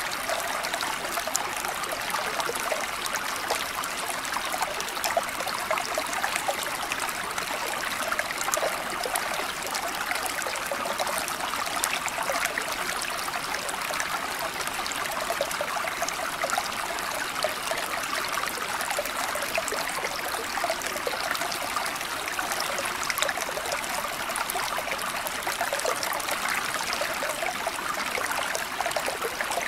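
Steady running water, a small stream trickling and splashing.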